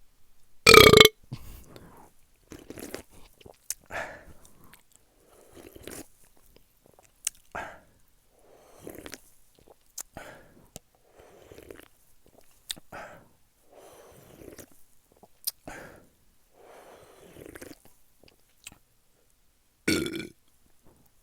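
A loud burp about a second in and another near the end, from a person drinking canned Dr Pepper soda. Between them come a series of fainter gulps and swallows, about one every second or so.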